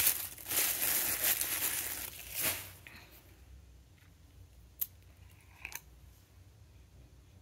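Rustling and crinkling of paper packing material as a small candle is unwrapped, fading out after about two and a half seconds, then two light clicks as the glass candle jar is handled.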